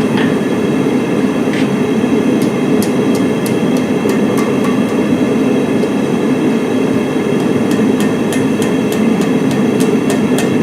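A forge running with a steady rushing noise, with hammer strikes on steel at the anvil: a few scattered blows a couple of seconds in, then a quicker run of about three blows a second near the end, as the old file is forged into a fire steel.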